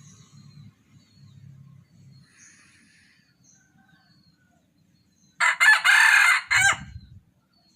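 A junglefowl cock crowing once, a loud call of a little under two seconds, after faint low sounds in the first couple of seconds.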